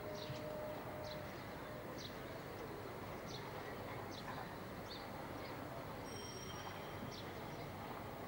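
Faint steady background rumble with small birds chirping, short high chirps every half second to a second, and a brief higher whistled note near the end.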